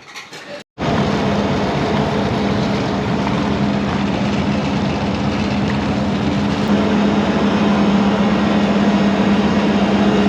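Toyota UZ-series V8 engine running steadily at a constant speed with an even hum over wide wash noise. It starts abruptly about a second in and grows a little louder about two-thirds through.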